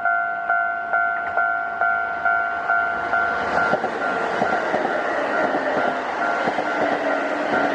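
Level-crossing warning bell ringing in even pulses, a little over two a second. From about three to four seconds in, the running noise of a passing Kintetsu Osaka Line train builds up under it, with the bell still going.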